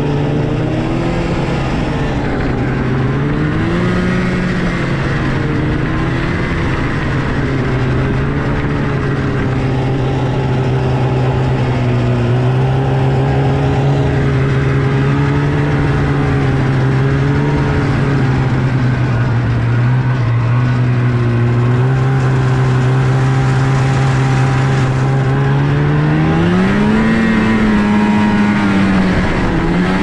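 Snowmobile engine running steadily under way. Its pitch swings up and down with the throttle a few seconds in, then climbs and drops again near the end.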